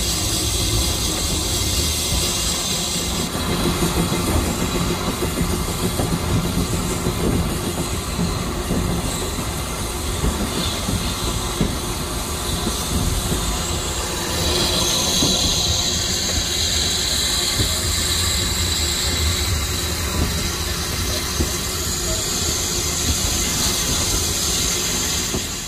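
Railway train running, a steady rumble with the wheels clacking over the rail joints; a high-pitched hiss comes in from about halfway through.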